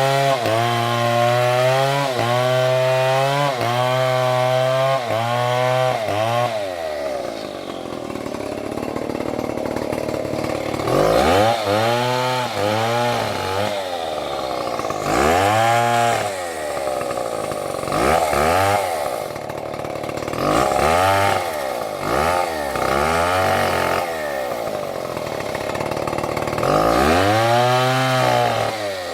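Large two-stroke chainsaw running hard with an even pulsing for about six seconds, then dropping back. After that it is blipped up and down in a string of short revs, some in quick pairs, with the last long rev near the end.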